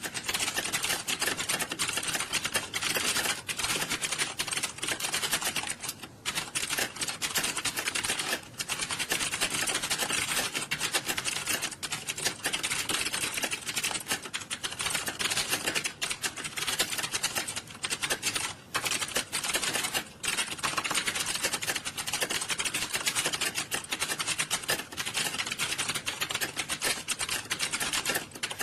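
Many computer keyboards being typed on fast at the same time: a dense, continuous clatter of key clicks with only a few brief dips.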